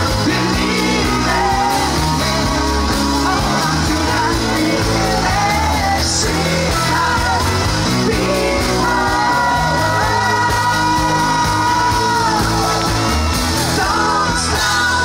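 Live band performing on stage: electric guitar and drums under sung vocals, with some shouting, and long held sung notes in the second half.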